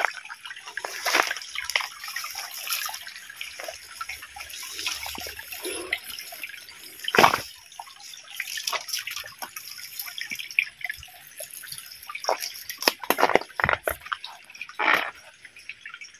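Shallow rocky stream trickling and dripping over stones, with irregular sharp splashes and knocks, the loudest about seven seconds in and a cluster near the end.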